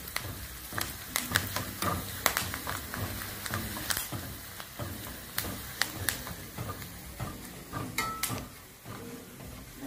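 Onions and curry leaves frying in hot oil in a small stainless steel pan, sizzling steadily, while a steel spoon stirs them and clicks and scrapes against the pan many times. This is the onion tempering for a curry, the onions turning brown.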